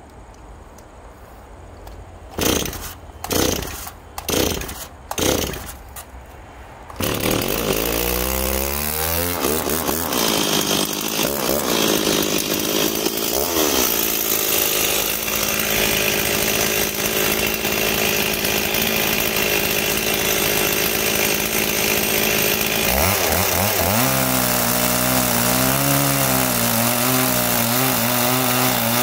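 Stihl MS 280 two-stroke chainsaw pull-started: several short bursts from pulls on the starter, then it catches about seven seconds in and revs up. It runs at high speed, and about 23 seconds in the engine note drops and wavers as the chain cuts into the hard wood.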